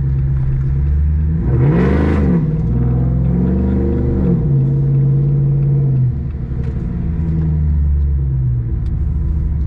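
Supercharged V8 engine of a Demon-engined Jeep revving in two quick rises and falls, then running steadily, dropping in pitch about six seconds in and again near the end.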